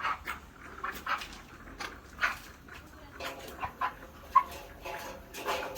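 Broiler chickens giving short, irregular squawks and calls while being handled for weighing, mixed with brief knocks.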